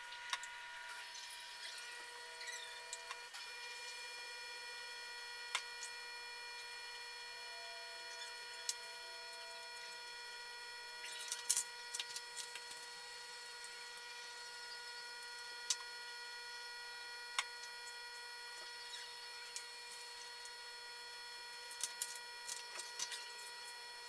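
Scattered light clicks and taps of scissors and construction paper being handled on a wooden tabletop, with a small cluster about halfway through and another near the end, over a faint steady whine of several held tones.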